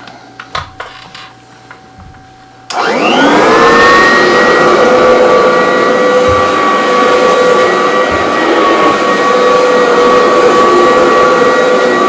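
A few light clicks of handling, then a vacuum cleaner motor switched on about two and a half seconds in: it spins up with a rising whine over about a second and then runs steadily and loudly.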